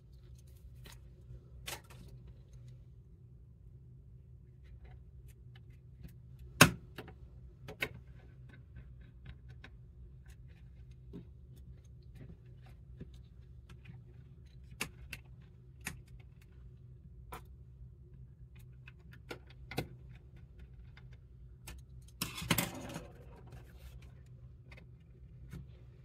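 Small screwdriver turning the screws on the plastic bottom cover of an Asus Chromebox 5 mini PC: scattered light clicks and ticks, with a sharper knock about six seconds in and a short rattle near the end, over a steady low hum.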